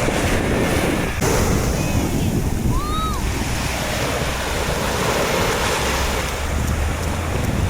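Sea waves breaking on a sandy beach, with wind buffeting the microphone. A couple of short high chirps come about three seconds in.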